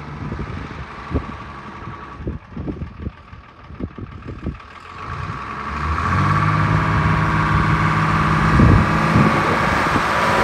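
1972 GMC Napco K5500's naturally aspirated 478 cubic inch Toroflow V6 diesel pulling the truck along a gravel road. It is quieter at first and grows much louder from about five seconds in as the truck comes close.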